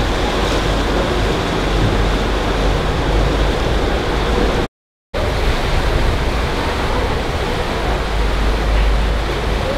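Steady rush of water and wind past the hull and deck of a moving passenger motor ship, with a heavy low rumble underneath. It drops out abruptly for a moment about five seconds in, then carries on the same.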